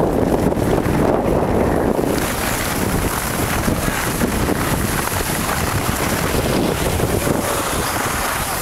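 Wind buffeting the microphone of a camera carried by a moving skier, mixed with the hiss of skis sliding on packed snow. The rushing grows brighter and hissier about two seconds in.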